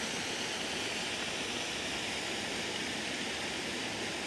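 Steady, even rushing hiss of outdoor ambience, like moving water or wind, with no distinct events.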